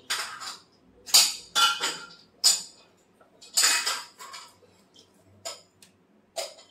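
Kitchenware clinking and clattering in short, sharp, irregular knocks, about a dozen over a few seconds.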